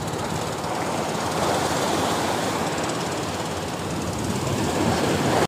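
Steady rushing noise of choppy seawater and wind, with a low rough rumble underneath.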